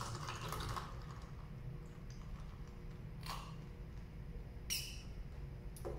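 Iced coffee in a plastic cup stirred with its straw, then sipped through the straw: a few short sipping sounds about three and five seconds in, over a low steady room hum.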